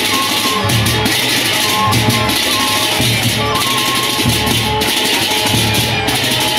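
Lombok Sasak gendang beleq gamelan playing: many pairs of hand cymbals clash in a dense, continuous shimmer over a steady low drum beat, with a few held pitched tones above.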